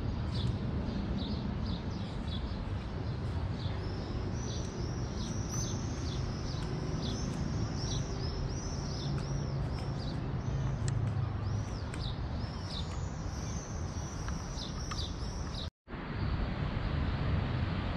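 City rooftop ambience: birds chirping in quick, repeated high calls over a steady low rumble of distant traffic. The sound cuts out for an instant near the end.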